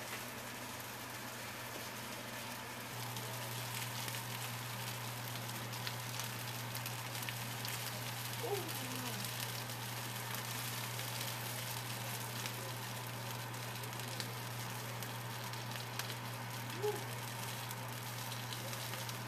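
Food sizzling in hot pans on a gas stove, an even hiss with a few faint clicks, over a steady low hum that gets louder about three seconds in.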